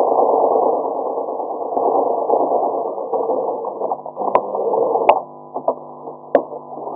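Domestic sewing machine stitching steadily along a seam, stopping about five seconds in, with a few sharp clicks around and after the stop.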